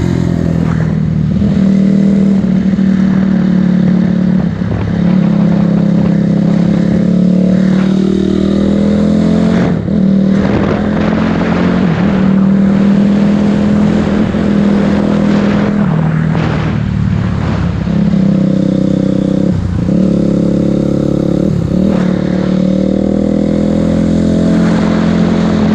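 2006 Honda CRF250R's four-stroke single-cylinder engine running under way, holding a fairly steady pitch that drops off briefly a few times. The engine is freshly rebuilt and, by the owner's account, still not running right.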